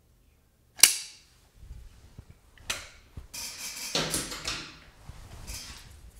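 Hands working a plastic syringe and a tube of Liquid Nails construction adhesive: one sharp snap about a second in, then a run of plastic scrapes and clicks as the syringe comes off the tube and its plunger is worked back in.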